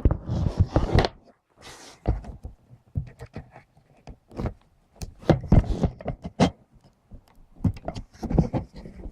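Irregular clicks, knocks and brief rustles of hands handling the opened jammer's casing and parts at close range.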